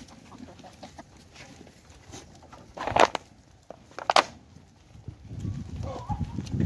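Goats feeding in a farm pen, with two loud, sharp, short sounds about a second apart near the middle, then low rumbling near the end.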